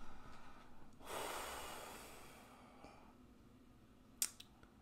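A man's long exhale, starting about a second in and slowly fading away, then a single short click near the end.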